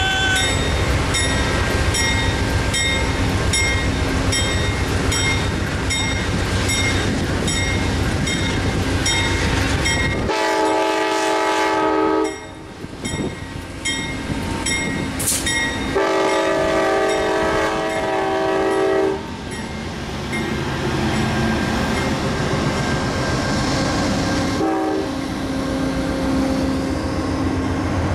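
Amtrak GE P42DC diesel locomotive running past close by, its engine rumbling, with two long blasts of its multi-note horn about ten and sixteen seconds in. The passenger cars then roll by behind it.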